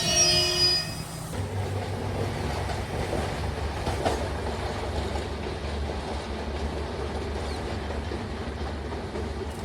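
Diesel train running on the rails: a high wheel squeal in the first second, then a steady low engine rumble with wheel clatter.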